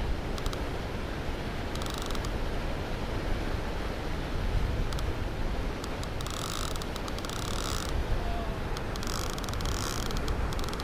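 Conventional fishing reel clicking rapidly in bursts, briefly about two seconds in and again for a couple of seconds from about six and nine seconds in, over a steady low rumble of wind on the microphone.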